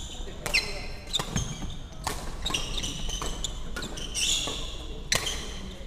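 Badminton rally on a wooden sports-hall floor: court shoes squeaking as players push off and stop, mixed with sharp hits and footfalls, several times a second.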